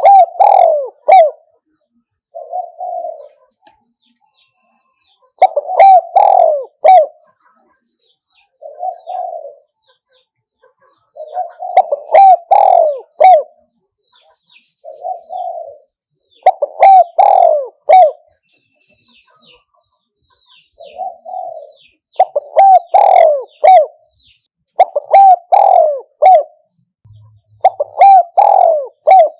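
Spotted dove cooing: phrases of several loud coos repeated every few seconds, with a softer, shorter coo between several of the phrases. A recorded call of the kind played back to lure wild spotted doves to a decoy.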